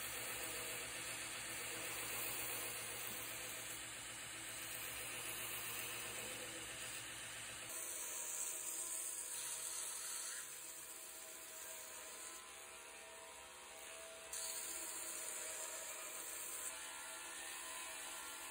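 Belt grinder running while a wooden knife handle is pressed against the moving sanding belt to grind its profile. The low hum under the grinding noise drops away about eight seconds in.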